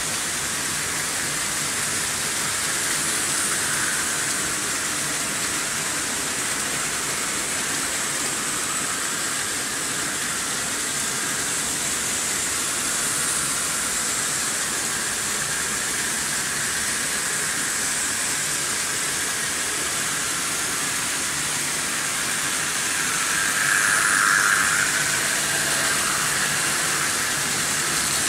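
Märklin H0 model trains running on analog metal M-track: a steady whirring, rolling noise from the locomotive motors and the wheels on the pressed-steel rails, swelling briefly near the end as a train passes close.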